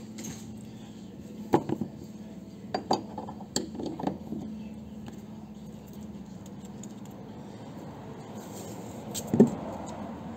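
A few light clinks and knocks of small metal parts being handled, scattered through the stretch with the loudest about nine seconds in, over a steady low hum.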